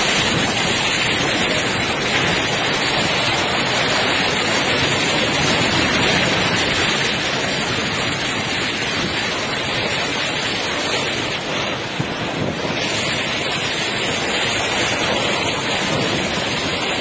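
Coastal storm in full force: heavy rain and wind making a steady, dense rush of noise.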